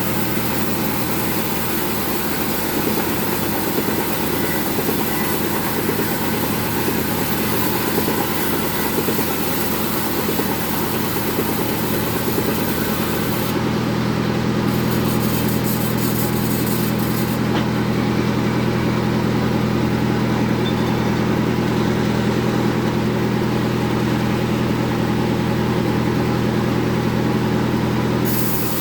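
Band sawmill running steadily while sawing a jengkol hardwood log, a steady machine drone under a high hiss. The hiss drops away about halfway through and returns near the end.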